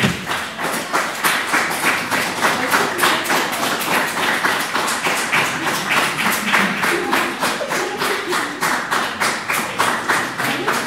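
Theatre audience applauding, clapping together in a steady rhythm through the cast's curtain call.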